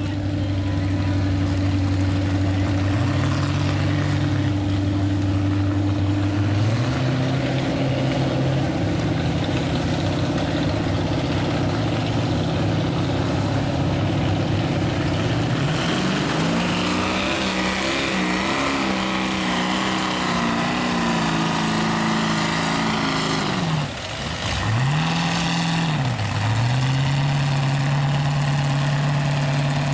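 572 cubic-inch big-block Chevy V8 of a mud truck running hard under load. The engine pitch steps up about a quarter of the way in and climbs again about halfway, then drops sharply and swings back up about three-quarters of the way through.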